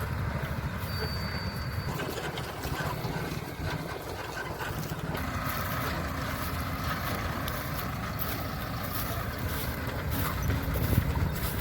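Engine of a mini combine harvester running steadily with a fast low pulsing.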